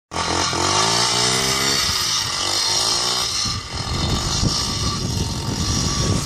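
Small 50cc Baja minibike engine revving as the bike pulls away through deep snow. Its pitch rises and falls over the first two seconds, then it runs rougher and a little quieter as the bike moves off.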